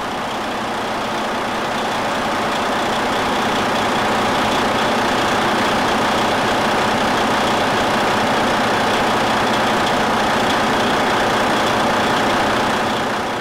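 Freightliner Cascadia heavy truck's diesel engine idling steadily, freshly started, fading out near the end.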